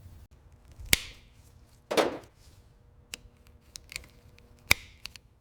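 Workshop handling of tools and parts: two sharp knocks with a short ring, about a second in and near the end, a brief scrape about two seconds in, and a few light ticks between.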